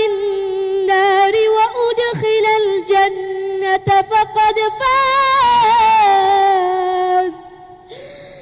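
A child's high voice chanting Quran recitation in long, drawn-out melodic notes that bend in pitch, with a few short breaks, stopping about seven seconds in.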